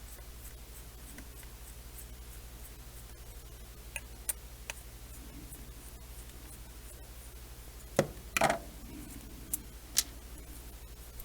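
Small clicks and taps of screws, a hex driver and frame parts being handled while assembling a quadcopter frame: a few light ticks about four seconds in, then a cluster of louder knocks around eight to ten seconds in. A steady low electrical hum runs underneath.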